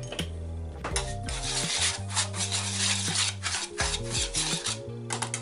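Wire whisk scraping and rubbing through seasoned breadcrumbs against the bottom of a metal baking pan, in quick repeated strokes that start about a second in. Background music plays under it.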